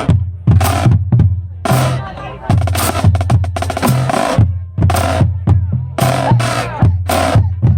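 Marching drumline playing a loud, rhythmic cadence: snare drums and rolls over bass drums, with sharp accented hits.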